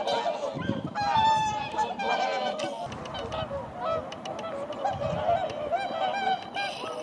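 A flock of whooper swans calling: many overlapping honking calls, one after another without a pause.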